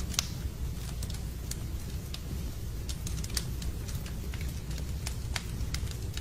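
Wood fire in a fireplace crackling, with irregular sharp pops and snaps over a steady low rumble of the burning logs.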